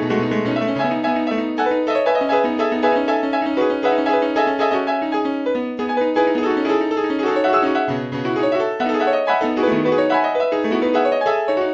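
Piano music, many notes played at a flowing pace over sustained low bass notes.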